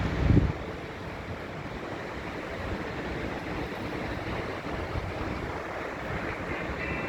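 Steady rushing of river water, with a short low buffet of wind on the microphone just after the start.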